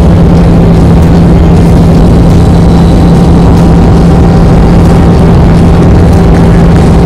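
Arena loudspeakers playing the show's soundtrack so loud that the microphone is overloaded: one steady low droning note held throughout over a dense, distorted wash of noise.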